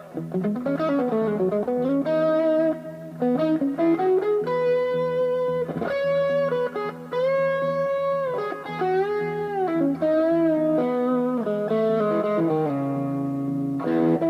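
Fernandes FST-70 Strat-style electric guitar playing a single-note lead line. Several notes are bent up and down in pitch, and the held notes carry vibrato.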